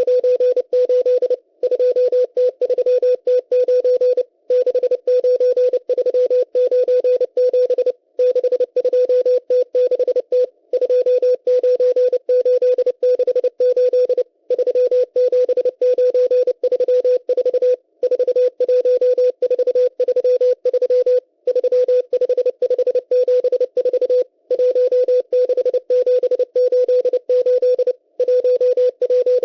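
M12 numbers station sending Morse code numbers, received on shortwave: a steady tone of about 500 Hz keyed on and off in quick dots and dashes. The keying comes in groups a few seconds long, each followed by a short break.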